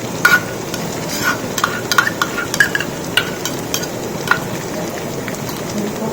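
Onions, green chillies and ginger-garlic paste sizzling in hot oil while a ladle stirs and scrapes through the pot, with sharp clinks against the pot for the first four seconds or so, then a steadier sizzle.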